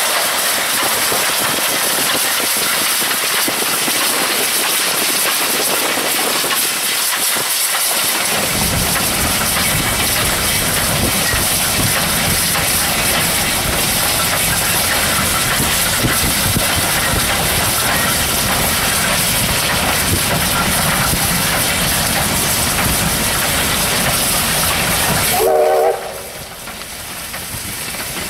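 Ex-Victorian Railways J class steam locomotive running at speed, heard from a vehicle pacing it, under a loud steady rush of wind and road noise. A deeper rumble joins about eight seconds in. Near the end the noise drops suddenly and a short whistle sounds.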